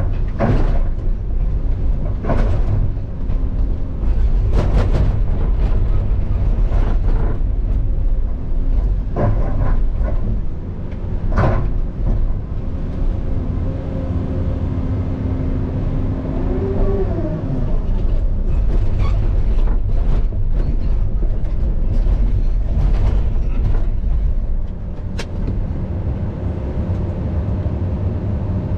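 Caterpillar 335 excavator's diesel engine running steadily with its hydraulics working, broken by irregular clanks and knocks of the bucket on rock, about one every two seconds at first. A brief rising and falling whine comes a little past halfway.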